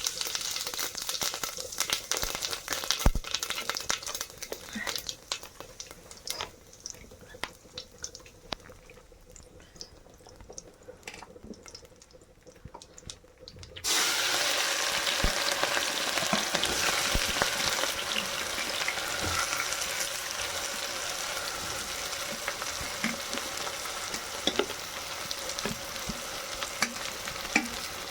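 Scattered light clinks and scrapes of cooking utensils, then about halfway through food goes into hot oil with a sudden loud sizzle. It keeps frying steadily while being stirred.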